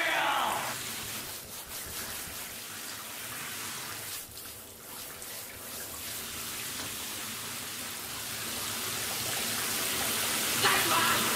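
Shower water spraying with a steady hiss. A singing voice trails off about a second in and starts again near the end.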